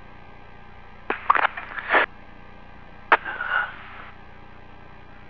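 Two short bursts of crackling noise over a radio channel, each opening with a sharp click, about two seconds apart.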